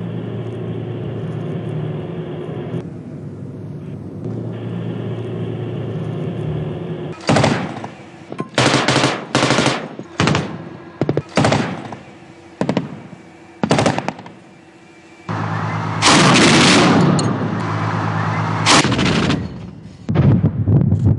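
Armoured vehicle engines running steadily, then machine-gun fire: several short bursts, a longer stretch of continuous fire about two-thirds of the way in, and more bursts near the end.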